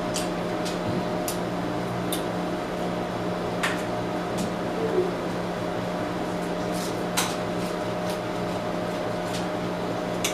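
A steady mechanical hum with a few faint sharp ticks scattered through it.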